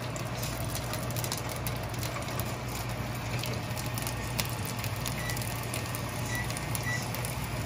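Asparagus spears sizzling and crackling in hot oil in a frying pan, with a steady low hum underneath.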